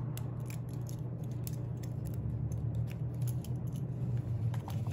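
Light clicks and jingles of the metal clips on a bag's shoulder strap being handled, scattered irregularly over a steady low hum.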